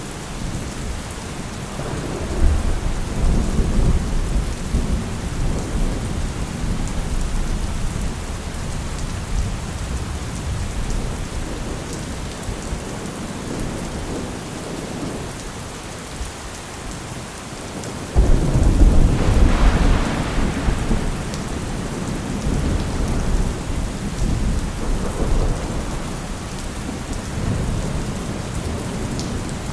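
Steady rain with rolling thunder. A low rumble comes about two seconds in, and a sudden, louder thunderclap about eighteen seconds in rumbles on for a few seconds.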